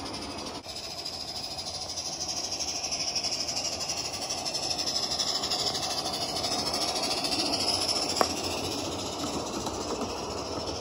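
Live steam Accucraft USRA 0-6-0 model locomotive running: a steady hiss of steam with a fast pulsing beat. A single sharp click about eight seconds in.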